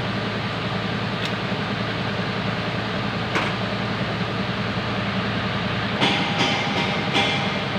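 A steady mechanical hum. About six seconds in it changes, and a run of evenly spaced clacks follows, about two or three a second.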